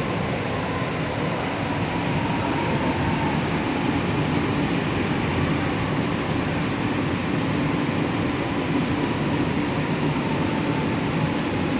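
Lucknow Metro train heard from inside the carriage: a steady running rumble with a faint high whine over it.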